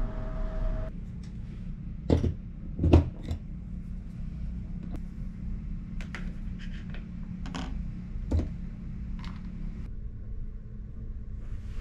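Small clicks and knocks of handling, including a charger plug being pushed into a wall outlet, the loudest about two and three seconds in, over a steady low room hum.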